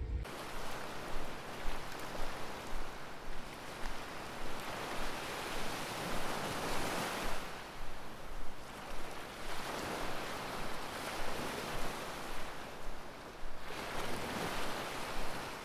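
Sea waves washing onto a sandy beach, the surf swelling and easing every few seconds.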